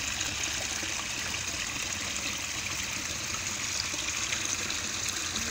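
Small garden rock waterfall: water spilling over stacked stones into a pond, a steady trickling splash.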